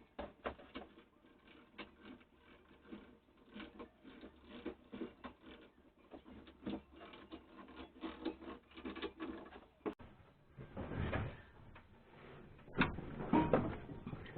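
Rapid, irregular metallic clicking and rattling as a cast cylinder head is pulled off a Moskvich 412 engine with a cable on a homemade puller. Two louder scraping rasps come near the end as the head and its exhaust manifold come free.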